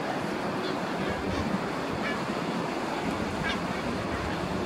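Sea waves washing against a rocky shore, with wind on the microphone: a steady rushing noise. A few faint, short high notes come through it now and then.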